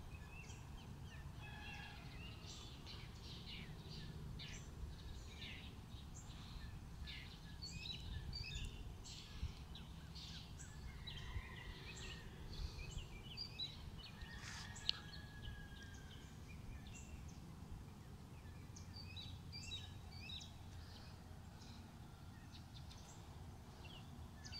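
Several small birds chirping in short, overlapping high notes, with a few longer whistled calls, over a steady low background rumble.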